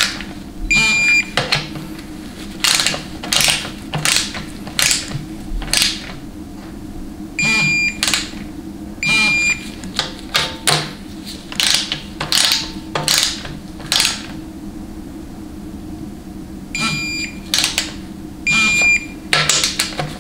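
700R4 transmission pan bolts being tightened with a ratcheting torque wrench: short ratchet rasps with each stroke, and a high electronic beep in pairs every several seconds as the wrench signals the set torque (about 98 inch-pounds) on each bolt.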